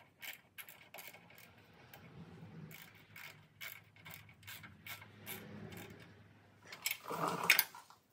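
Ratcheting wrench clicking in runs of about three to four clicks a second as a bracket bolt is turned, with a pause between runs. A louder metal clatter comes near the end.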